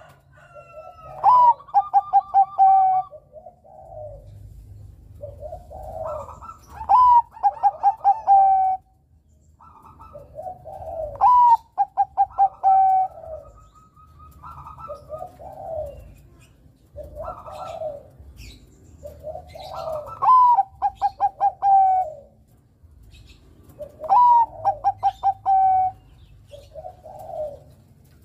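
Zebra dove (Bangkok perkutut) singing its cooing song over and over: each phrase is a quick run of short staccato notes ending in a held coo, repeated about every four seconds, with softer, lower coos in between.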